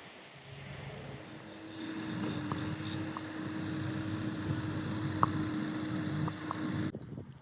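A motor vehicle's engine running with a steady hum, building up over the first couple of seconds and cutting off abruptly near the end.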